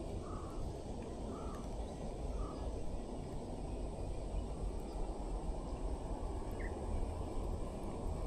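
A steady low rushing noise outdoors, with a bird calling three short times, about a second apart, near the start.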